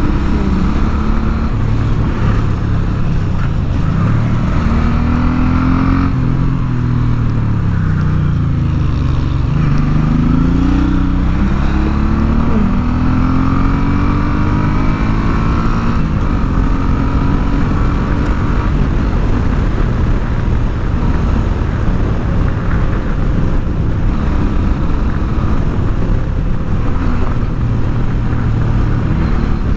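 Suzuki Intruder motorcycle's engine running under way, with wind noise over the helmet microphone. The engine pitch falls and climbs again several times between about six and sixteen seconds in, as the rider eases off and accelerates.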